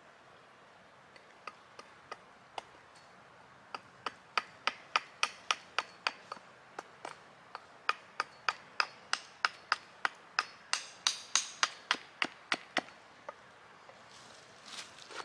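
Small hatchet chopping a sycamore carving blank on a wooden chopping block to rough out its shape. A few scattered knocks, then quick runs of sharp chops about three a second with a short break in the middle, ending about two seconds before a brief rustle near the end.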